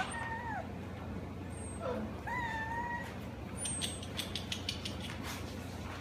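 Goldendoodle puppy whining: a short falling whine at the start and a longer, steady high whine about two seconds in. This is followed by a run of faint clicks.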